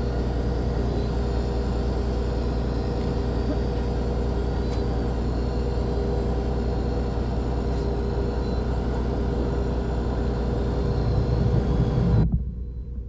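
Fishing boat's engine running with a steady drone and hum. The low rumble swells just before the sound drops off abruptly near the end.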